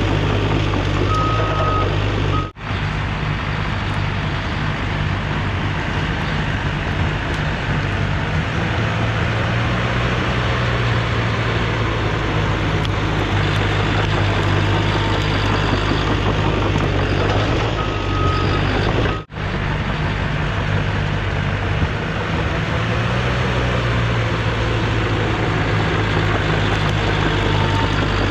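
Cat D5 crawler dozer's diesel engine running steadily as it pushes dirt, swelling twice as it works harder. Its backup alarm beeps briefly near the start and again about two-thirds of the way through, and the sound cuts out for an instant twice.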